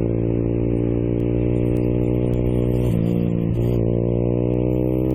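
Motorcycle engine running under way, its pitch holding steady, dipping briefly about three seconds in, then climbing gradually as it accelerates.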